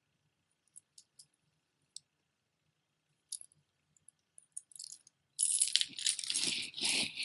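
Costume jewelry being handled: a few light clicks of beads and metal pieces, then from about five seconds in a continuous clattering rustle as pieces are moved and sorted.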